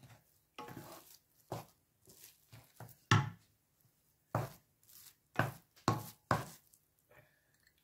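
Wooden spoon scraping and knocking against a nonstick frying pan while stirring a thick couscous-and-sugar mixture, in about ten irregular strokes, the loudest about three seconds in.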